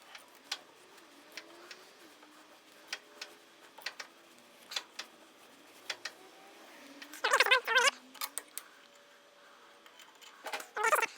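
Scattered sharp clicks and creaks of a taper tap being turned by hand with a tap wrench in a steel shaft, chips breaking as it cuts. About seven seconds in comes a short, loud squeal with several wavering pitches, and another near the end.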